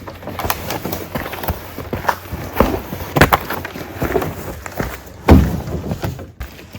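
Footsteps along a portage trail, with irregular knocks and scuffs and one heavy thud a little after five seconds.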